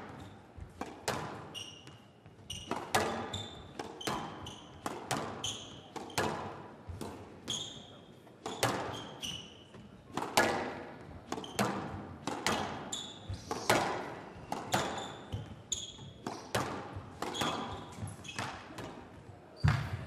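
A squash rally: the ball is struck by rackets and smacks off the walls and glass in a quick, irregular run of sharp hits. Players' court shoes squeak briefly on the wooden floor between the shots.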